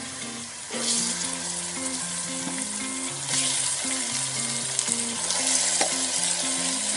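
Raw chicken pieces sizzling as they go into hot oil with fried garlic-ginger paste and are stirred with a wooden spoon. The sizzle surges about a second in and again about three seconds in as more pieces land in the oil. A soft background tune plays underneath.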